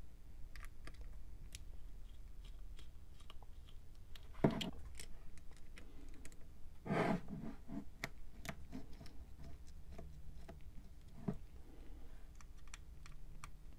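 Small clicks and scrapes of a precision Phillips screwdriver turning out the tiny screws that hold the plastic frame on a Mares Genius dive computer, with the computer being handled. Two louder handling noises come about four and a half and seven seconds in.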